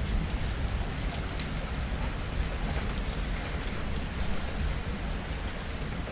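Steady rainfall, with a low continuous rumble of distant thunder underneath.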